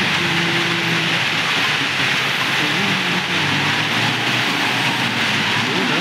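ACE 4x4 backhoe loader's diesel engine running under load as the machine drives and manoeuvres, its pitch rising and falling, over a steady loud hiss.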